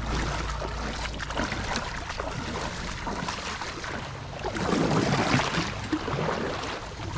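Creek water splashing and sloshing around a kayak in shallow water, irregular small splashes that grow louder about four and a half seconds in.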